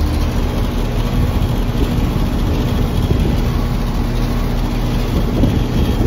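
Outdoor heat pump unit running in cooling mode, filmed up close: a steady low compressor hum under the rush of the condenser fan.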